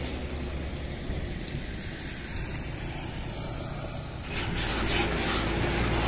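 Large diesel coach bus engine running as the bus approaches. It grows louder about four seconds in as the bus comes close and turns past.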